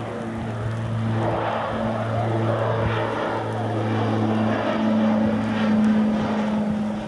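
Saab 340 twin-turboprop airliner passing low overhead on final approach: a steady propeller drone with a deep hum, growing louder toward a peak about six seconds in as the aircraft comes directly over.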